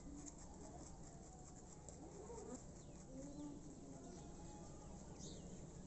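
Faint yard ambience: hens clucking softly now and then in the background, with a few high bird chirps.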